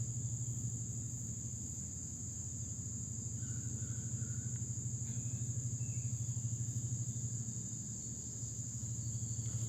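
Crickets trilling in a steady, rapidly pulsing high-pitched chorus over a low steady hum.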